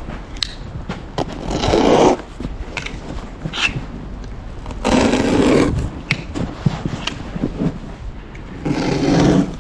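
Three separate rasping scrapes, each half a second to a second long, with scattered light knocks between them.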